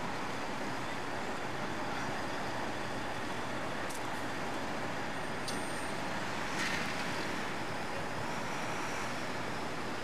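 Steady vehicle and traffic noise with no clear engine note, and a brief louder noise about two-thirds of the way through.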